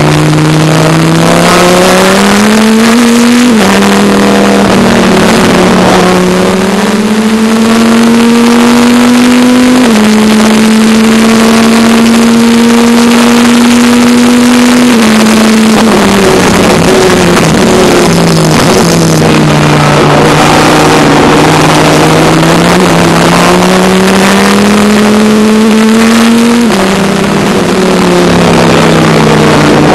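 Dodge Viper ACR's V10 race engine heard from inside the cockpit at racing speed. The engine note climbs through the gears, dropping at upshifts about 3 s and 10 s in, and holds steady flat out. Around 15 s in it falls away as the driver lifts off, then climbs again, with another upshift near the end. Constant wind and road noise sit under the engine.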